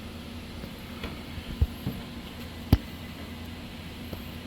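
A few knocks and clicks of metal parts and hand tools being handled on a small engine, the sharpest about two and three-quarter seconds in, over a steady low hum.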